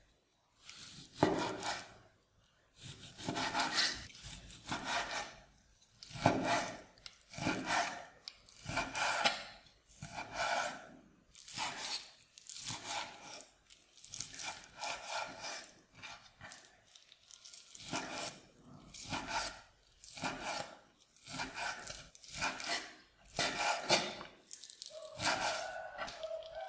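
Japanese-style kitchen knife slicing and dicing raw chicken breast on a bamboo cutting board: repeated drawing strokes of the blade through the meat and onto the wood, roughly one a second.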